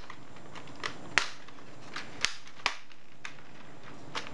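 Plastic clips and pins around the edge of a Logitech G15 keyboard's case snapping into place as the case is pressed together: five or six sharp, separate clicks at uneven intervals, the loudest a little over a second in.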